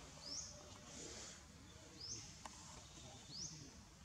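A bird faintly repeating a short, high, upward-sweeping chirp several times, with a single faint click about halfway through.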